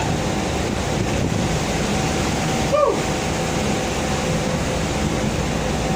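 Boat motor running steadily under a haze of wind and water noise, with a brief tone falling in pitch about three seconds in.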